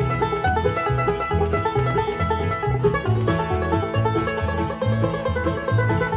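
A band playing an instrumental passage with no singing: quick picked string notes over a bass line that alternates between two notes about twice a second.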